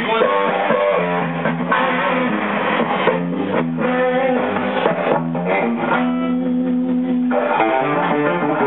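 Electric guitars played live through amplifiers, picked notes and chords running on, with a long held chord near the end.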